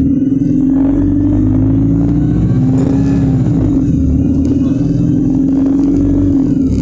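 Alexander Dennis Enviro 200 bus with a Voith automatic gearbox, its engine droning loudly under acceleration. A faint high whine climbs to about halfway through and then falls away, and the drone dips briefly at the same point.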